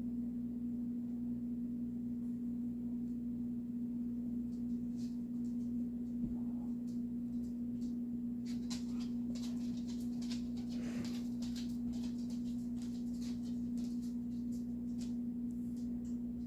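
A steady, low electrical hum on one pitch, with faint light ticks and scratches scattered through the middle.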